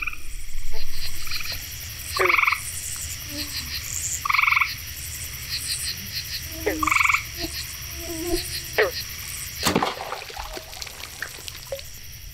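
Night chorus of frogs giving short pulsed calls every couple of seconds over a steady high drone and rhythmic chirping of insects. About ten seconds in comes a single sharp snap as the bow is shot at a bullfrog.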